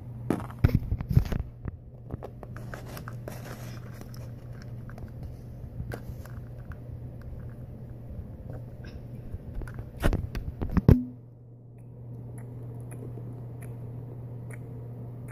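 Handling noise from small plastic toy figurines being held and moved close to the microphone: scattered clicks, taps and rustles, with a cluster of louder knocks near the start and again a little past two-thirds of the way through, over a steady low hum.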